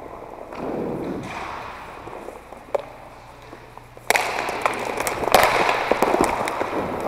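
Inline hockey skates rolling on a plastic court floor, with a dense clatter of sharp clicks and knocks from wheels, sticks and puck that starts suddenly about four seconds in.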